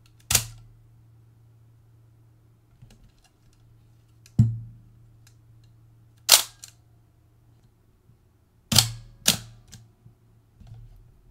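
Hasselblad 2000FC's mirror and titanium focal-plane shutter firing in a mirror lock-up test: five sharp mechanical clacks, one with a heavier thud, with faint small clicks between them. The repaired, formerly jammed shutter is working.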